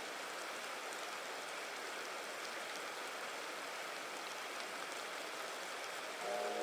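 A shallow creek running over rocks: a steady rush of flowing water. Music fades in near the end.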